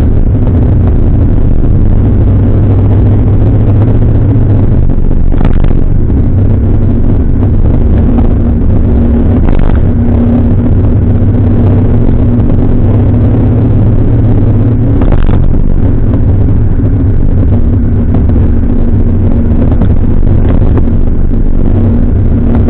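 Jowett Jupiter's flat-four engine running at a steady cruise under road and wind noise, its note shifting about two-thirds of the way through. Three brief knocks stand out, at about five, ten and fifteen seconds in.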